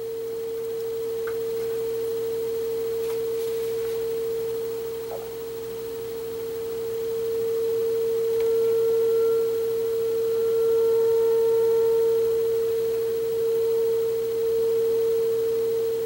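Steady audio test tone from a mid-sixties Magnavox console stereo's AM radio as it receives the tone-modulated 600 kHz signal from a signal generator during alignment. The tone swells and dips in loudness as the tuning is adjusted.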